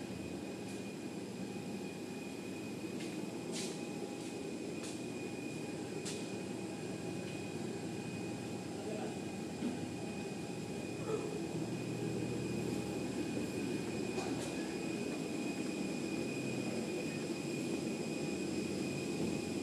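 Steady hum of jet aircraft engines or auxiliary power units running on the apron, with a thin high whine, muffled by the glass walls of the jet bridge; it grows a little louder about twelve seconds in. A few faint clicks.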